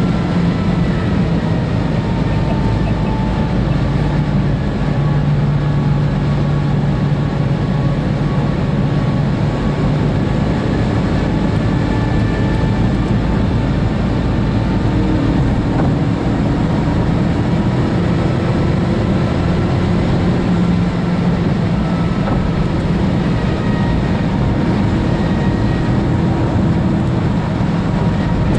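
Inside the cabin of a tuned, turbocharged Seat Ibiza Cupra at sustained high Autobahn speed: a steady engine drone under heavy wind and tyre noise, with the engine note drifting slowly up and down.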